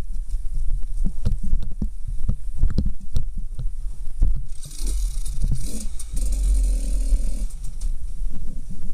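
KTM dirt bike engine running at low revs with a low throb while the bike picks its way down a rocky trail, with frequent knocks and clatter from the wheels and suspension over stones. About halfway through, a louder rushing hiss joins for some three seconds.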